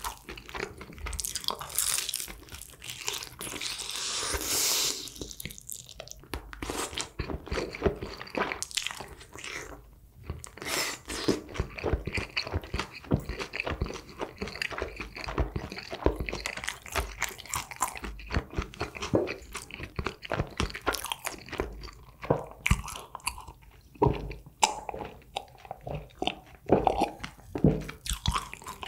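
Close-up biting and chewing of crispy fried chicken, Kyochon Honey Combo: the coating crunches irregularly with each bite, between stretches of chewing.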